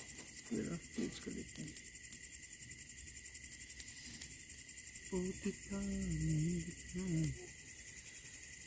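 Crickets chirring steadily in a high, even chorus, with a person's voice briefly heard about five seconds in.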